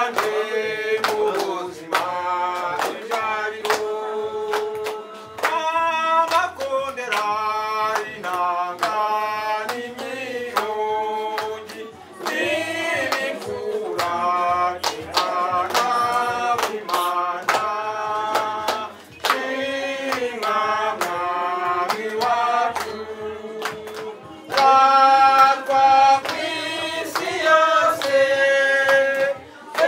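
A group of men singing together to steady hand-clapping.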